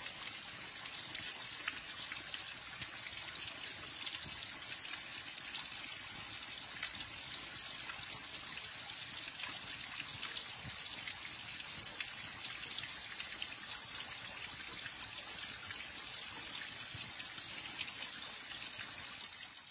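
Thin waterfall trickling and splashing steadily down layered rock ledges onto wet rock, with a constant patter of small drips.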